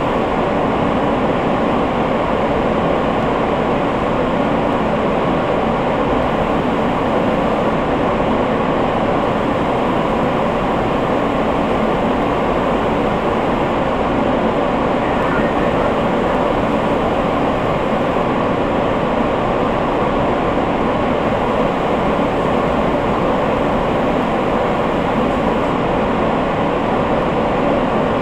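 Inside a New York subway car running through a tunnel: a steady, unchanging rumble of wheels on rail and car body noise.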